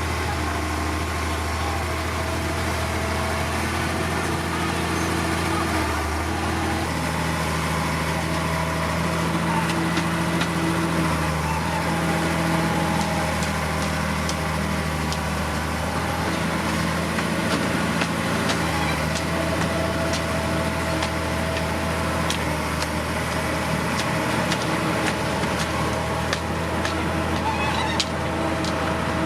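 Heavy earthmoving machinery's diesel engine running steadily, its note shifting slightly a couple of times as the load changes.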